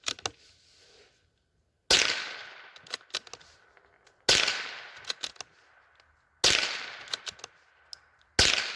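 Howa M1100 .22 LR semi-automatic rifle firing four shots about two seconds apart, each crack trailing off in a short echo.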